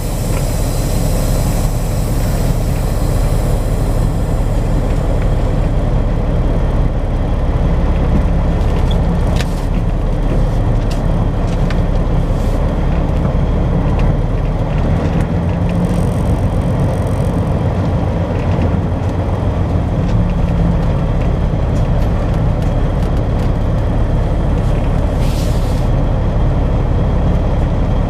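Semi truck's diesel engine running steadily at low speed, heard from inside the cab, as the truck creeps forward through a narrow doorway. A short air hiss comes about 25 seconds in.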